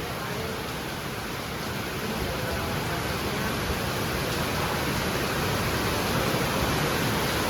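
Steady, even rushing noise with no distinct events, growing a little louder about two seconds in.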